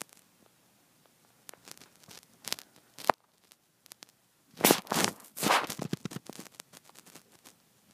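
Handling noise from a hand-held phone: scattered clicks and crackles, with a louder scraping rustle from about four and a half to six seconds in.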